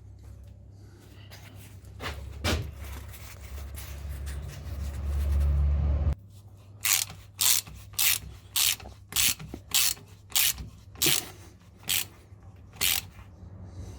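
Hand tool work at a GAZelle's rear axle: a low rumble that swells and stops abruptly about six seconds in, then about ten evenly spaced rasping strokes, nearly two a second.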